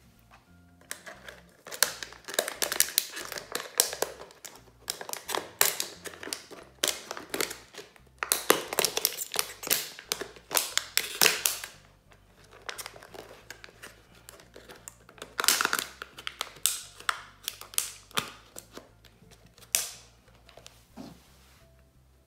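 Thin plastic water-bottle pieces handled and pressed together, giving clusters of crinkling, clicks and scrapes, with a lull around the middle. Quiet background music plays underneath.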